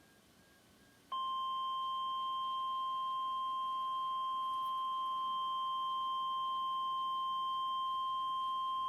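Emergency Alert System attention tone: the single steady 1050 Hz NOAA Weather Radio warning tone. It starts about a second in and holds at one pitch, signalling that a warning message is about to be broadcast.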